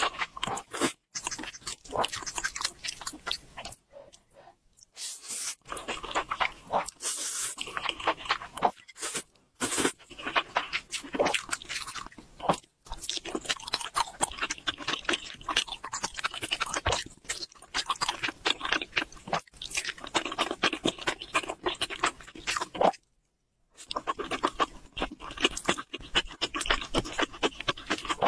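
Close-miked mouth sounds of eating spicy instant noodles: slurping and wet chewing with quick clicks and crunches, broken twice by a brief silence.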